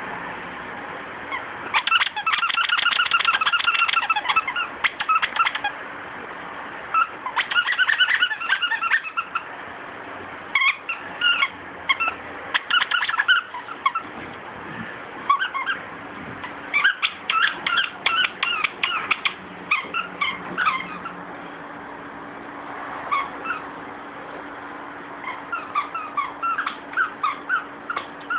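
Squeaker in a plush toy squeaking as a pit bull chews it, in about five runs of quick squeaks with short pauses between.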